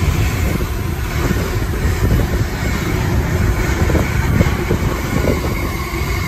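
Container freight train's wagons passing close at speed: a loud, steady rumble with a dense clatter of wheels on the rails.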